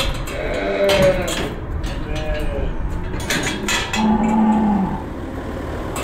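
Cattle mooing in a barn: a few shorter, higher moos in the first half and one longer, steady low moo about four seconds in. Sharp metallic clanks of a steel pen gate sound between the calls.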